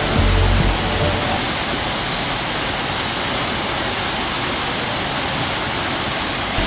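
Large waterfall's water rushing and pouring down steadily, a dense, even hiss with no break.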